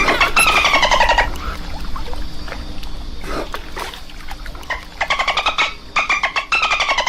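Dolphin burst-pulse calls: rapid click trains heard as buzzy squawks that slide down in pitch, one long call at the start, scattered faint clicks in the middle, then three shorter calls near the end.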